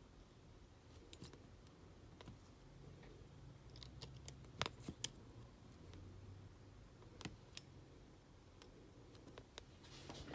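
Near silence broken by a few faint, sharp clicks and taps of small metal repair tools on an opened iPhone's internal parts, the loudest coming in close pairs, over a faint low hum.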